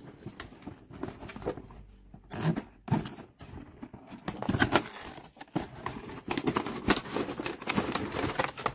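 Cardboard box and clear plastic packaging tray being handled and slid apart, with irregular crinkling, rustling and crackling of the plastic.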